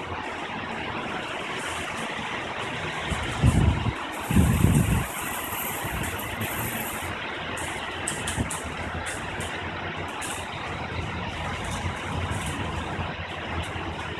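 Thunderstorm rain falling with a steady hiss, and two low rumbles of thunder about three and a half and four and a half seconds in.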